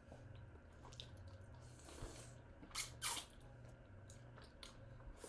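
Close eating sounds of a mouth working soup and fufu: wet smacking and sucking, with two louder sucks in quick succession about three seconds in, over a low steady hum.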